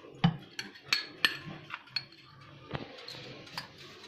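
Light, irregular clinks and taps of a spatula and a metal spoon against glass bowls as flour is spooned into cake batter and folded in, a handful of scattered ticks with soft scraping between them.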